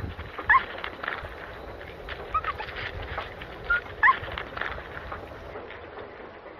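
Agouti giving short, sharp, rising squeaky calls: two loud ones about a second and four seconds in, with fainter squeaks between, over light rustling in leaf litter.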